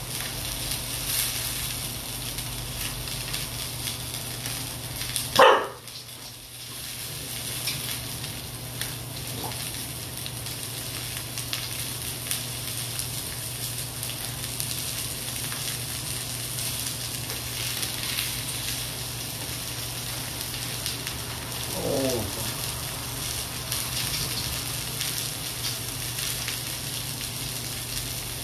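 Meat skewers sizzling steadily on a hot grill pan. A dog gives two short whines that slide downward in pitch, a loud one about five seconds in and a softer one near the end.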